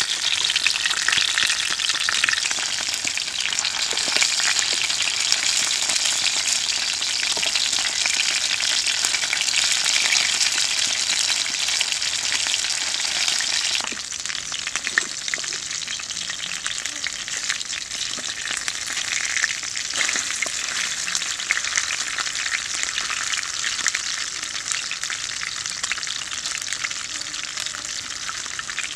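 Fish frying in oil in a pan, a steady sizzling hiss with scattered crackles, dropping a little in level about halfway through.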